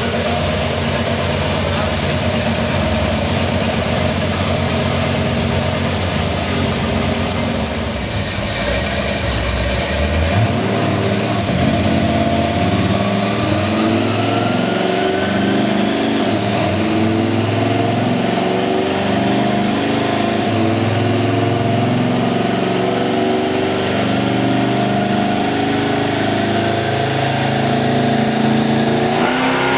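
1968 Camaro's 427-cubic-inch V8 running as the car is driven onto a chassis dyno, then idling unevenly with a choppy beat. It starts to rev right at the end.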